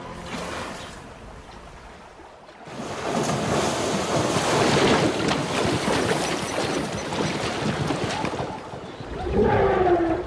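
Heavy, choppy splashing of water as a herd of zebras moves through river shallows, many short splashes running together. Near the end comes a short animal call that falls in pitch.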